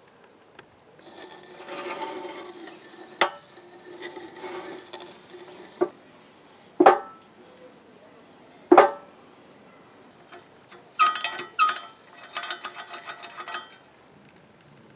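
Old, rusty hand pallet truck being worked: a rough metallic grinding and scraping for a few seconds, several loud metal clanks, then a quick metallic clatter near the end.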